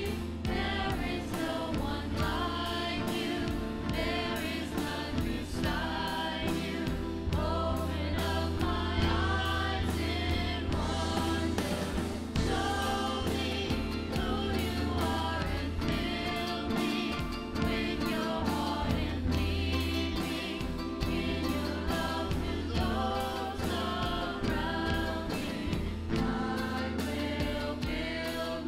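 A worship song sung by several voices together with instrumental accompaniment, the melody carried over a steady bass.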